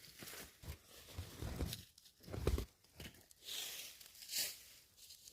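Irregular rustling and crinkling with a few soft thumps, the strongest about two and a half seconds in.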